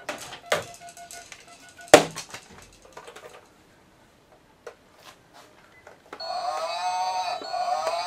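Plastic toys knocking and clattering as they are handled, with one sharp knock about two seconds in. About six seconds in, a battery-powered musical baby toy starts playing an electronic melody with a steady beat.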